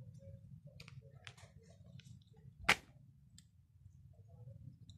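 Cats feeding from a plastic bag: scattered light clicks and crinkles of plastic and chewing, with one sharper click a little past halfway.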